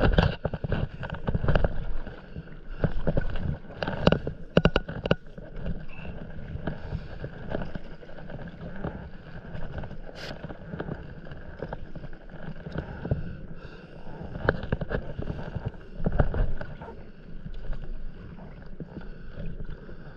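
Stand-up paddleboard paddle strokes through calm sea water, splashing in uneven surges every second or two over the steady wash of water around the board.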